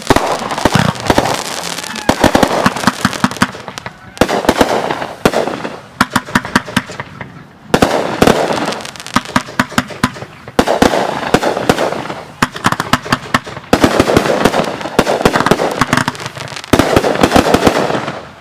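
Aerial fireworks going off in rapid volleys: dense runs of sharp cracks and bangs every couple of seconds, with short lulls between.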